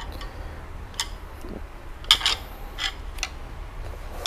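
Light clicks and taps of badminton rackets being handled, their frames and shafts knocking together about five times, over a steady low hum.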